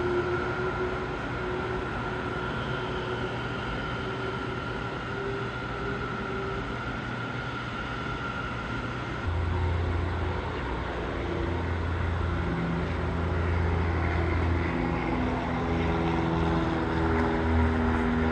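Boeing 767-300 jet engines running at idle with a steady whine. About nine seconds in, a light single-engine propeller plane takes over at takeoff power: a steady low drone that grows louder as it climbs out.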